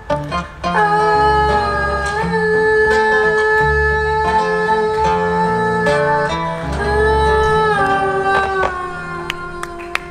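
Live band playing a song's closing section: guitar and bass under long, held wordless sung notes. The music eases off near the end.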